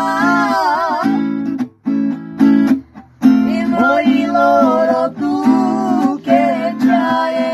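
Acoustic guitar strummed and picked, accompanying a singing voice with wavering, ornamented lines in a Romani song. The music breaks off briefly twice, about two and three seconds in.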